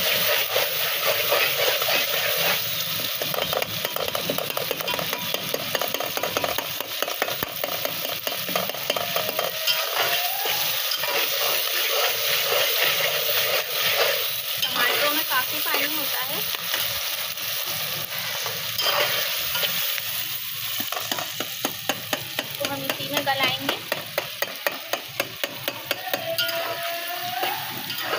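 Metal spatula stirring and scraping chopped tomatoes and onions frying in oil in a metal pot, over a steady sizzle. Near the end the strokes come quickly and evenly.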